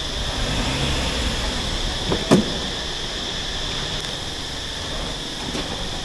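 Car running with a steady low rumble and hiss, a sharp clunk a little over two seconds in, and a couple of fainter clicks later.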